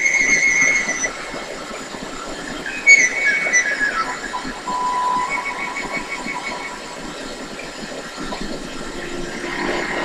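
A television's soundtrack under a studio logo, heard through the TV speaker: high held tones that waver, then gliding tones and a lower held tone, over a steady hiss. The tones are loudest in the first second.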